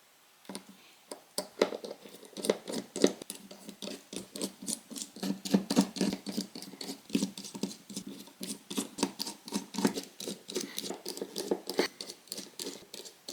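Small Phillips screwdriver backing tiny screws out of a phone's frame: a long run of light clicks and ticks, several a second, as the tool is turned and reseated.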